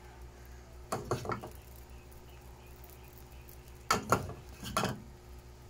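Clattering knocks against a non-stick frying pan in two short groups, about a second in and about four seconds in, the second group the louder, over a steady low hum.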